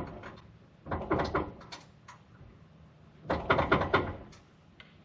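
Metal clinking and rattling as a steel hitch pin is worked into a tractor's hitch, in two spells: about a second in and again about three seconds in.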